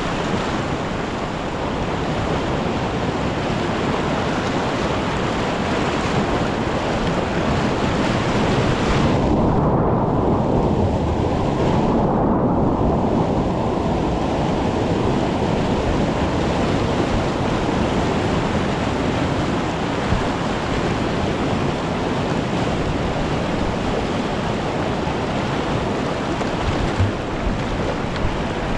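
Whitewater rapids rushing and splashing around a kayak running them. The sound goes muffled for a few seconds about nine seconds in.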